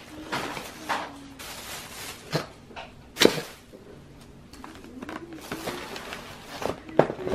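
Thin plastic shopping bag rustling and crinkling as disposable takeout bento containers are pulled out of it, with a few sharp knocks of the containers on a wooden table, the loudest about three seconds in.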